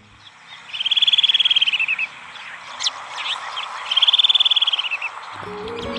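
A bird gives two rapid trills, each just over a second long and a few seconds apart, with a few short chirps between them, over steady outdoor background hiss.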